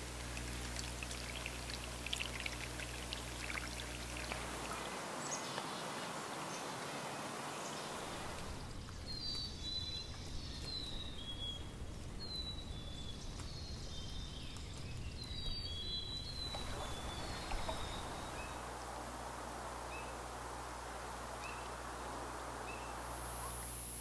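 Outdoor ambience of running or lapping water, a steady rushing noise. Through the middle comes a string of short, high, falling bird chirps, with fainter chirps again later.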